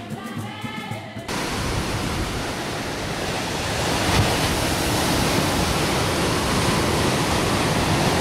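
Choir music cut off about a second in, then the steady, loud rush of ocean surf breaking on a sandy beach.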